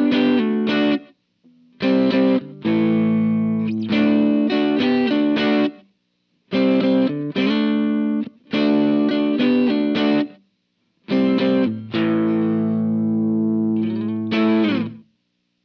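Electric guitar played through a Line 6 POD 2.0 amp modeler and recorded direct: chords are struck and let ring in short phrases, each cut off sharply into silence, with a pitch bend in the last phrase near the end.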